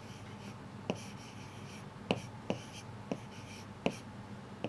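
Sharp, light clicks and taps at irregular intervals of about half a second to a second, with faint scratching between them.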